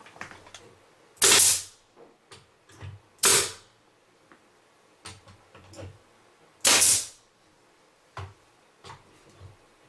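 Pneumatic stapler firing three times, each shot a sharp crack with a short hiss of air as it drives a staple into a wooden strip on the cabinet door. The shots come about two and then three and a half seconds apart, with light knocks and handling clicks between them.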